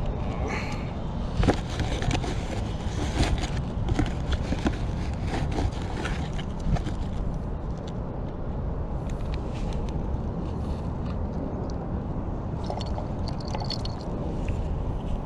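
Hands handling fishing bait and tackle over a metal tackle box, small clicks and scrapes mostly in the first half, over a steady low rumble.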